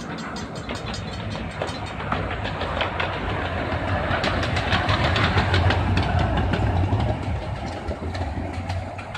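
Miniature ride-on steam locomotive passing close by, its exhaust chuffing in quick repeated puffs over the rumble of its wheels on the rails. It is loudest about halfway through, as it goes past.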